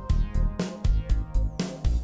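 Background music with a steady drum beat and bass.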